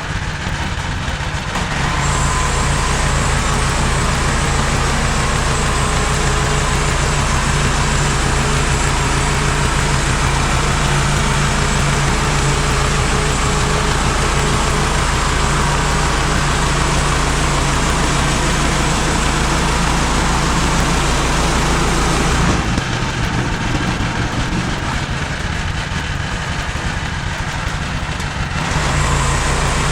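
MechMaxx SM32 portable band sawmill running, its engine steady with the band blade going. It gets louder about two seconds in, drops back for several seconds past the twenty-second mark, then comes up again near the end.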